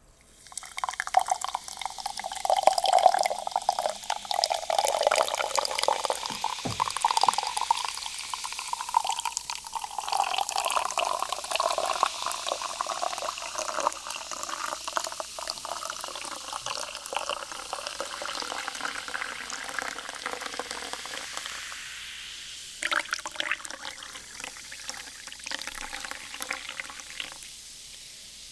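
Peach sparkling water being poured in a long, continuous stream, splashing close to the microphone, its pitch rising slightly as the pour goes on. It eases off about three quarters of the way through, gives one more brief splash, and stops near the end.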